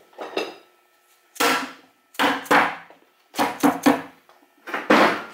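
Muncie 4-speed tail housing being handled against the midplate and case: five short metallic clunks about a second apart.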